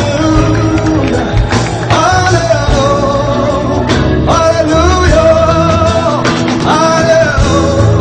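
Amharic worship song (mezmur) performed live: singers hold several long notes over a band with drums and a steady beat.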